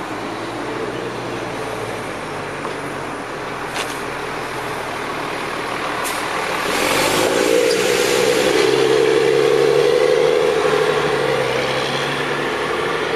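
City transit bus engine running as the bus pulls away and passes close by, its drone growing louder about halfway through and easing off slightly as it drives away.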